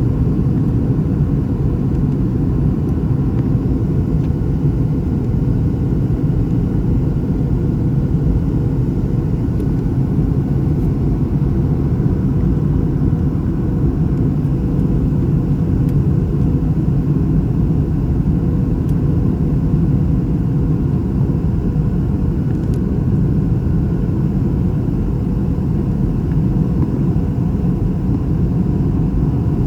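Steady low drone inside the cabin of a Boeing 737-700: its CFM56-7B jet engines and the airflow over the fuselage, heard from a window seat.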